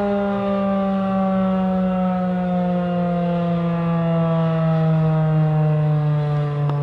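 Federal Signal 2001-SRN outdoor warning siren sounding loudly, its tone sliding slowly and steadily lower as it winds down.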